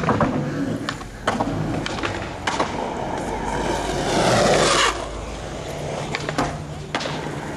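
Skateboard on asphalt: urethane wheels rolling with a rough hiss, broken by several sharp clacks of the deck popping and landing. A louder rolling rush comes about four seconds in as the board passes close by.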